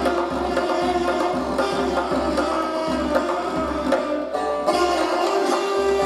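Persian classical improvisation on tar, ney and tombak: plucked tar notes over a held ney line, with hand strokes on the tombak giving a steady low pulse.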